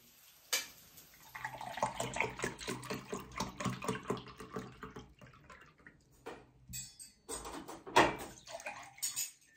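Orange juice glugging out of a carton into a drinking glass, a quick run of gurgles lasting a few seconds. After a short pause, a drink is poured from a plastic bottle into a second glass.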